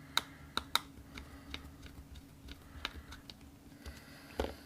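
Hands handling a small portable DAC/headphone amp: three crisp clicks in the first second, then scattered fainter taps and ticks, and a dull knock near the end.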